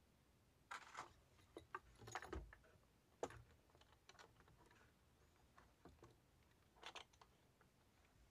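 Faint, irregular clicks and light taps from a gloved hand working the metal hinge clamp of a wooden screen-printing frame, with a brief cluster near the end.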